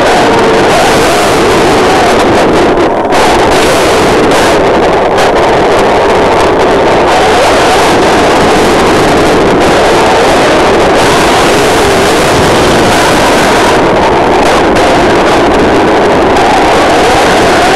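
Loud, steady rushing noise picked up by a small camera microphone riding on an electric 6S RC buggy driving fast over a wet road in the rain: wind and water spray on the mic mixed with the car's running gear.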